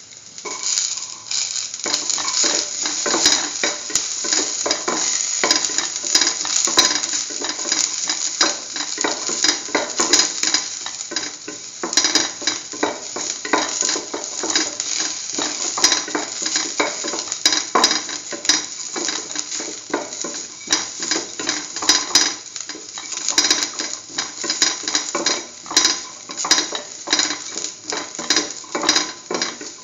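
Sliced onion and garlic sizzling in hot oil in a metal pan, with a spoon scraping and clicking against the pan as it is stirred.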